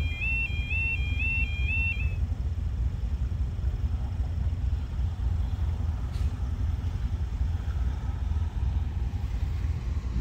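Level crossing audible warning alarm sounding its high two-tone warble, which stops about two seconds in once the barriers are fully down. A loud, unsteady low rumble runs underneath throughout.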